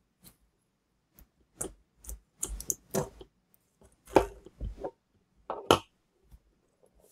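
Needle-nose pliers prying apart a disposable vape pen: a string of irregular clicks, knocks and scrapes of plastic and metal as the end cap and casing are worked off. The sharpest clicks fall a little past the middle.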